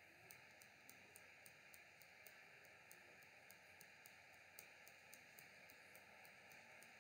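Near silence: faint steady hiss of room tone, with light quick ticks about three to four a second.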